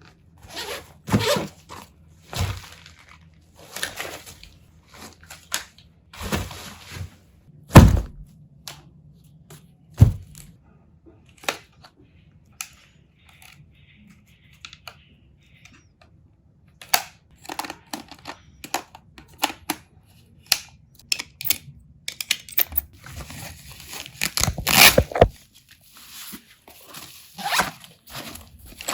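Foley props handled close to the microphone: a string of separate thuds, knocks and tearing or scraping noises with short pauses between. The sharpest knock comes about eight seconds in, and a dense noisy burst comes about twenty-five seconds in.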